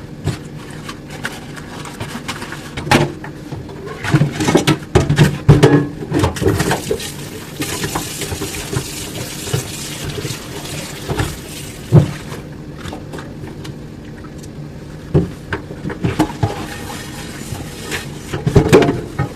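Dishes being washed by hand at a sink: dishes and utensils clinking and knocking, with water running from the tap for a few seconds in the middle.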